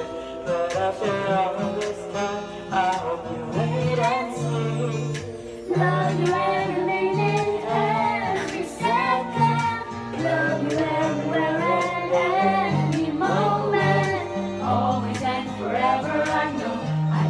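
A girl and her family singing together into handheld karaoke microphones over a backing track, several voices joining on the melody.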